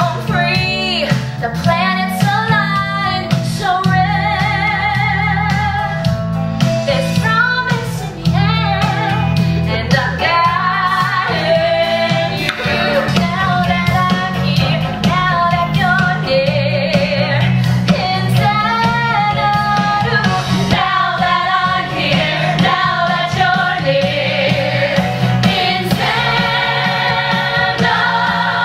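Musical-theatre pop song: a female voice sings with ensemble voices over a band with a steady beat and a bass line.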